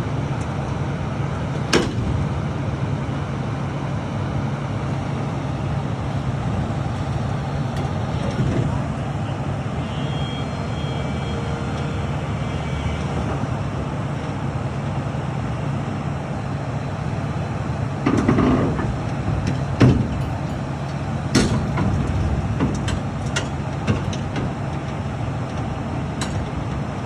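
Heavy machinery engine running steadily with a low hum. Sharp knocks and clanks come now and then, more of them in the last third.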